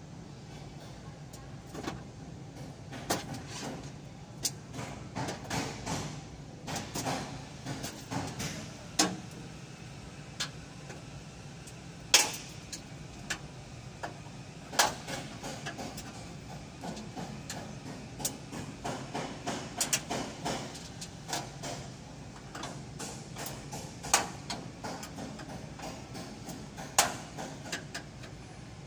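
Irregular tapping and knocking, with a few sharper knocks standing out, over a steady low hum.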